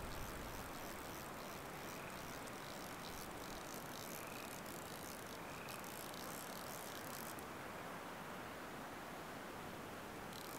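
Faint steady outdoor ambient hiss, with a few faint, short, high chirps spaced a second or two apart.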